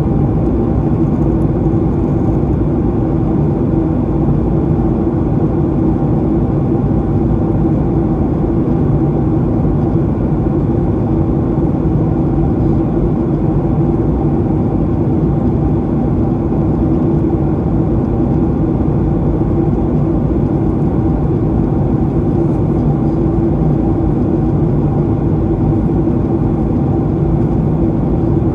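Steady cabin noise of a Boeing 737-800 in flight: the CFM56-7B turbofans' low rumble and hum mixed with airflow over the fuselage, heard from a window seat, unchanging throughout.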